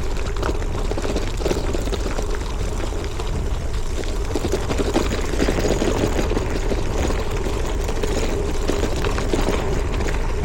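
Wind rushing over the microphone and tyre noise from a gravel bike being ridden over a rough surface, a steady loud rumble with constant small crackles.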